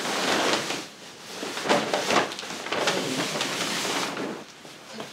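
Large paper shopping bag rustling and crinkling as a rolled woven kilim rug is pulled out of it, the rug's fabric brushing against the paper. The rustling comes in uneven spells, with brief lulls about a second in and near the end.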